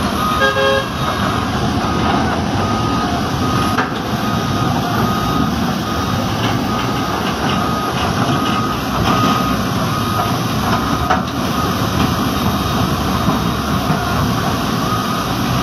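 Komatsu PC200 excavator's diesel engine running as it travels through a fast river, under the steady rush of water pouring over a log crossing. A reversing-type warning alarm beeps about once a second throughout.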